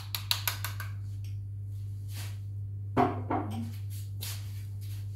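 A spoon stirring in a small glass bowl of sour cream and mustard, with quick clinks and scrapes for about the first second, then a short wordless vocal sound about three seconds in, over a steady low hum.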